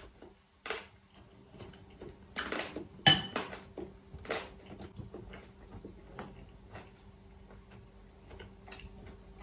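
Tableware and food being handled at a laden table: scattered soft clicks and taps, with one sharper ringing clink about three seconds in. A faint steady hum runs underneath.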